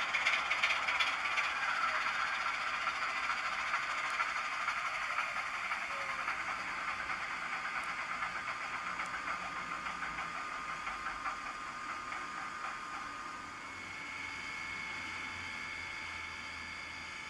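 DCC sound decoder in an OO-gauge model locomotive playing its loco sounds through the model's small speaker: a hiss with a fast, even patter that slowly gets quieter. A steady high tone comes in about fourteen seconds in.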